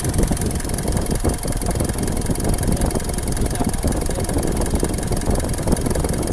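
Mitsubishi Strada turbo-diesel engine idling, heard close up in the engine bay, with a loud, uneven low rumble throughout.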